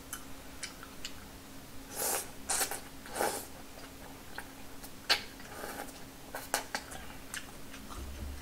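Eating at the table: chopsticks clicking and tapping on bowls and plates, with short slurps and chewing of ganjjajang noodles. The sounds come as scattered sharp clicks and brief bursts, several of them together about two to three seconds in.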